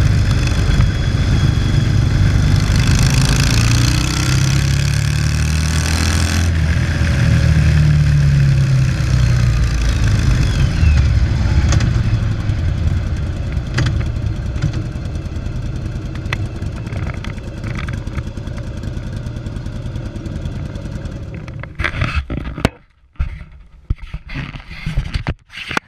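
Yamaha XV750 Virago air-cooled V-twin running through a debaffled (baffle-removed) exhaust, its pitch rising and falling with the throttle. The sound then grows gradually quieter and breaks up into short choppy bursts near the end.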